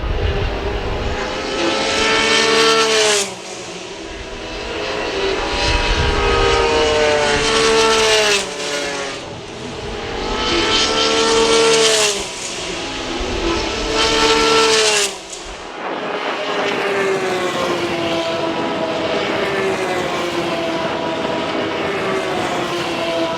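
Formula 3 cars' 3.4-litre Mecachrome V6 engines at racing speed, several cars passing one after another. The engine notes climb and then break off sharply about four times in the first fifteen seconds. After that a steadier note slowly falls away.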